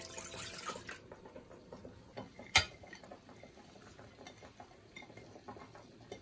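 Liquid poured into a metal saucepan for about the first second. About two and a half seconds in comes one sharp clink. Soft knocks and rustles follow as sliced shiitake mushrooms, carrot strips and other vegetables are tipped from a ceramic plate into the pan.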